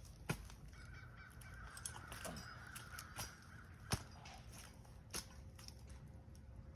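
A crow cawing in the background, a harsh call lasting a couple of seconds, with a few sharp clicks and knocks, the loudest near the start and about four seconds in.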